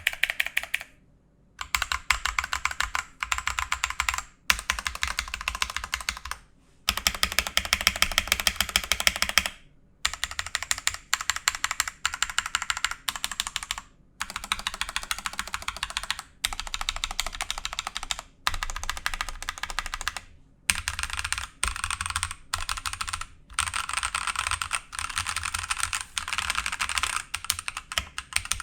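Typing on a mechanical keyboard fitted with Akko CS Lavender Purple tactile switches: fast runs of keystroke clicks lasting a few seconds each, broken by brief pauses.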